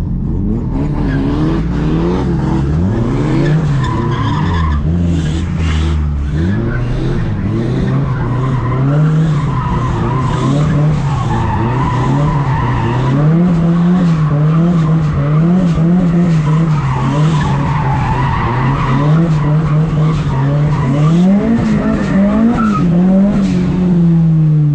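Nissan Silvia S13's engine revving up and down again and again as the car is drifted, heard from inside the cabin, with the tyres squealing through the slides.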